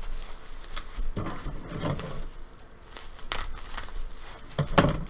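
Packaging crinkling and rustling in irregular crackles as it is handled and unwrapped, with a few louder crinkles along the way.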